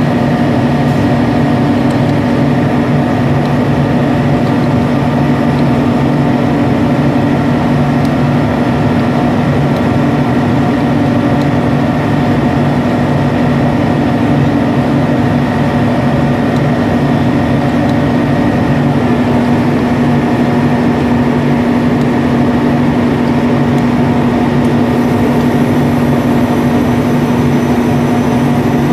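Heavy machinery running steadily nearby: a loud, even drone with a strong low hum that does not change.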